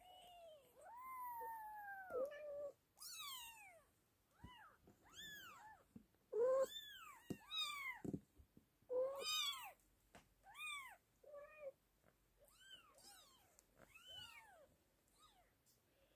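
Newborn British Shorthair kittens mewing: more than a dozen short, high cries, each rising and then falling in pitch, some overlapping, with brief quiet gaps between them.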